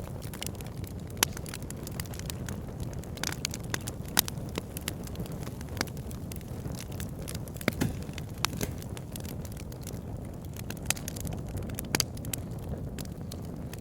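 Wood fire crackling in a fireplace: a steady low rush of flame with frequent, irregular sharp pops and snaps, a few standing out louder.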